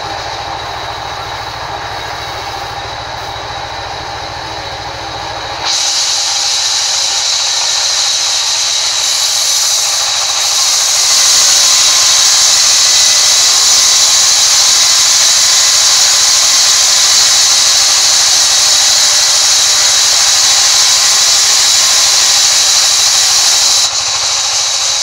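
Sawmill band saw running, then cutting lengthwise through a large timber block. About six seconds in the sound jumps to a loud, steady high hiss as the blade works through the wood, and it drops back shortly before the end.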